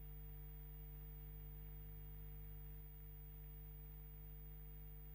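Dead air: a faint, steady low electrical hum with a few overtones, and nothing else.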